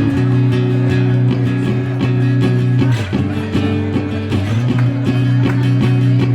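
Guitar music: chords strummed over and over, with a chord change about three seconds in.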